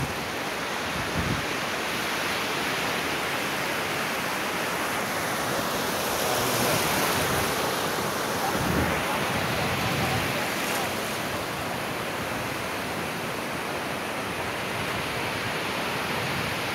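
Surf washing onto a sandy beach: a steady rush of breaking waves and wash, with wind buffeting the microphone now and then.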